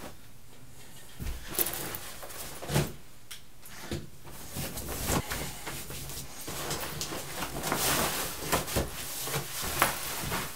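Clothing rustling as a shirt and a long-sleeved running top are pulled on, with scattered light knocks and shuffles of handling. It starts about a second in.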